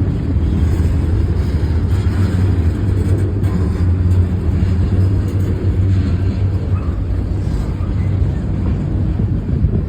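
A freight train rolling past, a loud, steady low rumble with no horn or distinct clanks standing out.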